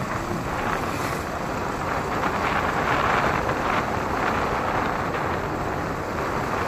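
Steady rush of wind over the microphone and road noise from a Yamaha motorcycle riding at moderate speed.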